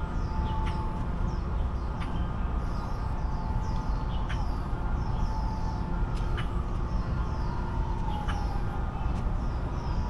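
Outdoor park ambience: birds chirping in short repeated calls over a steady low rumble, with a faint tone that slides slowly down in pitch near the end.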